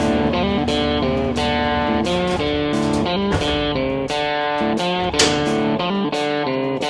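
Background music: plucked electric guitar playing a rhythmic, bluesy line with notes changing every fraction of a second.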